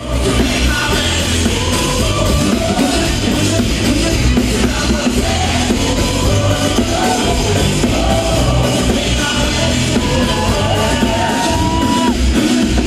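Live band with drums, electric guitar and a singer playing loudly, with a long held note near the end.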